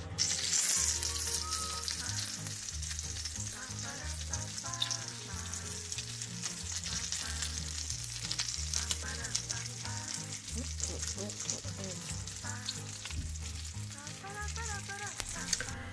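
Melted butter glaze sizzling and crackling in a hot metal baking pan of just-baked ham and cheese sliders, loudest in the first second or so and then steady. Soft music plays underneath.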